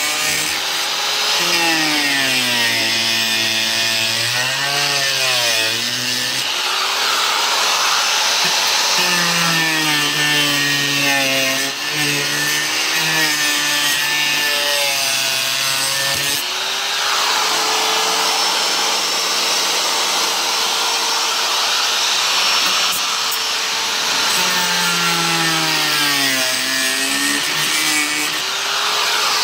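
Handheld electric power tool cutting through the FRP roof panel. The motor runs continuously, and its pitch dips and recovers again and again as the blade or wheel bites into the panel under load.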